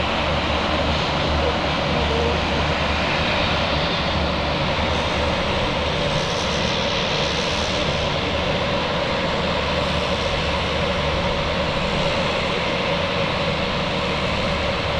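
Twin-engine turboprop plane's engines running steadily, a constant drone with a few fixed low tones that neither rises nor falls.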